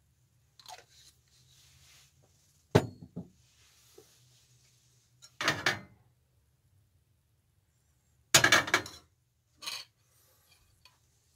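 A stainless steel frying pan and a metal spatula clinking and clattering against each other and the portable stove. There is a sharp knock about three seconds in, then a few shorter clatters spaced a couple of seconds apart.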